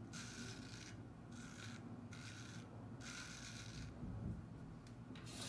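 Vintage 5/8 Kinfolks straight razor scraping through lathered stubble on the neck and jaw in about five short strokes, each a dry rasping hiss with brief pauses between.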